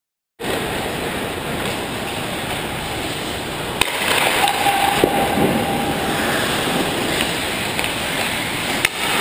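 Ice hockey play on an indoor rink: a steady hiss of skates on the ice, broken by a few sharp clacks of sticks and puck, about four and five seconds in and again near the end. The sound cuts in after a brief silence.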